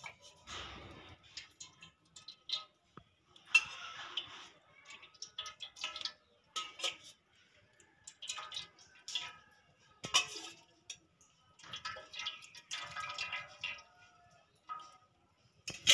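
Steel ladle clinking and scraping against a steel oil can and a metal pot as cooking oil is scooped out and poured in, ladle after ladle, with oil dripping and splashing. The clinks come irregularly throughout.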